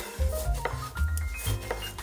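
Background music with a pulsing bass and a stepping melody, over a few sharp taps of a chef's knife slicing through a tomato onto a bamboo cutting board.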